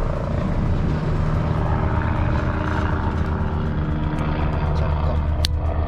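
Steady low hum of an engine running, with one sharp tick about five and a half seconds in.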